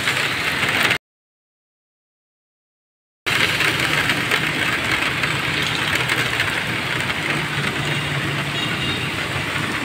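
Heavy rain pouring steadily, a continuous hiss with a faint low hum underneath. The sound cuts out completely for about two seconds, about a second in, then resumes.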